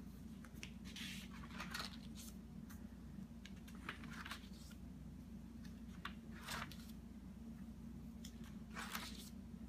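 Pages of a spiral-bound paper parts book being turned and brushed by hand: about half a dozen brief, soft papery swishes and rustles, over a faint steady low hum.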